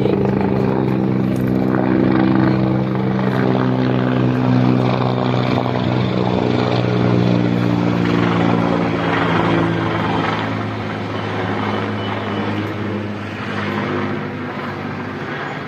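Helicopter running with a steady, low, pitched rotor drone, growing slightly fainter in the last few seconds.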